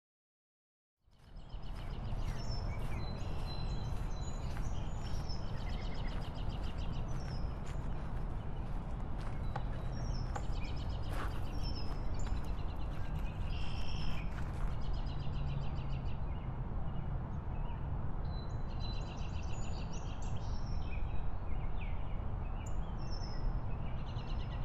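Outdoor ambience: a steady rushing noise bed with small birds chirping and calling over it. It starts about a second in and cuts off abruptly at the end.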